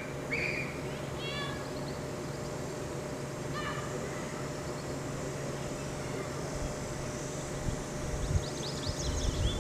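Steady outdoor background hum with a few short chirping calls, one about a second in and another a little past three seconds. Wind buffets the microphone near the end.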